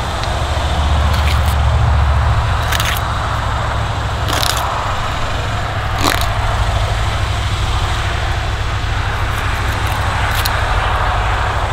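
A steady low rumble, with about five short sharp clicks and scrapes spread through it as a knife cuts fillets from a hanging, skinned catfish.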